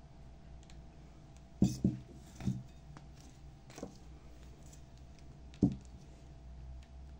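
Five knocks and clunks of hard objects being handled and set down, two close together about a second and a half in and another loud one near the end, over a low steady hum.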